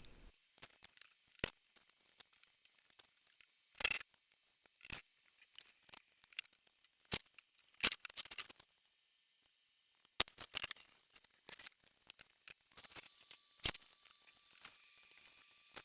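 Faint, scattered clicks and knocks of hand tools and parts as a homemade laser cutter's cabinet is taken apart, separate sharp ticks a second or so apart with quiet between. A faint steady high tone comes in about three-quarters of the way through.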